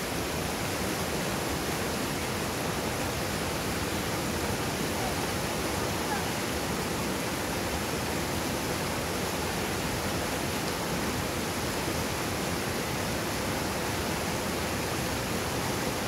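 Mountain river rapids rushing over boulders: a steady, even roar of fast white water.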